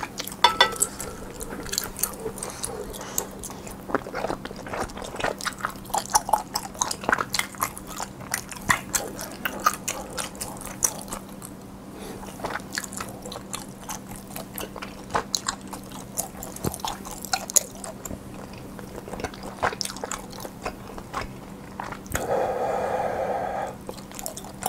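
Close-miked eating: a person chewing and biting food with mouth open, giving many quick wet clicks and crunches in an irregular rhythm. Near the end comes a short held hum-like sound of about a second and a half.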